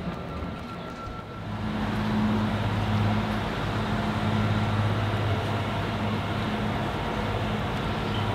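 Tugboat engine running steadily as the tug passes close, with water churning along its hull; the engine sound swells in about a second and a half in and holds steady.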